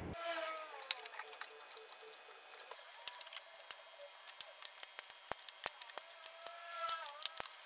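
Scattered sharp clicks and light ticks, growing denser in the second half, with a faint wavering pitched tone at the start and again near the end.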